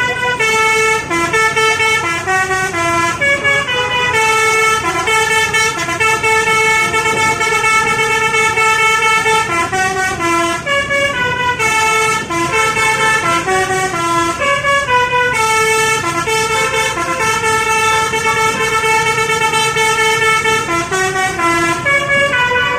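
Basuri telolet bus horn, a multi-trumpet musical air horn, playing a long tune of changing notes, two or three sounding at once.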